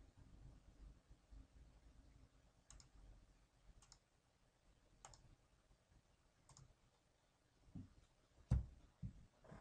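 Computer mouse button clicks: four sharp clicks about a second apart, then a few dull knocks near the end, one much louder than the rest, over faint low background noise.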